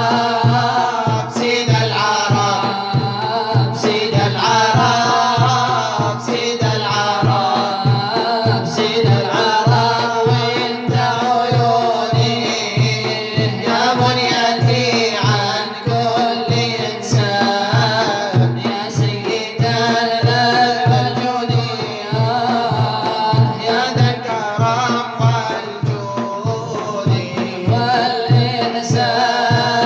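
Arabic nasheed: men's voices singing a devotional song in a Middle Eastern melodic style over a steady, regular low percussion beat.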